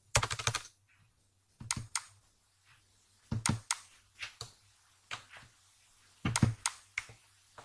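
Typing on a computer keyboard: short runs of key clicks separated by pauses of about a second, the first run the quickest.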